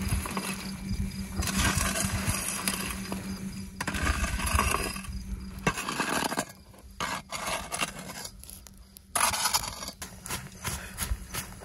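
A shovel scraping and knocking through embers and ash on a steel pan, with scattered small clicks of coals. Near the end, a bundle of brushwood swept over the ashes in quick repeated strokes.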